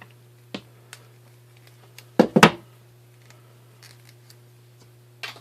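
A crimp tool's built-in stripper cutting the outer jacket off a Cat5 Ethernet cable, with a few small clicks and then a loud burst of sharp snips and clicks a little over two seconds in, over a steady low hum.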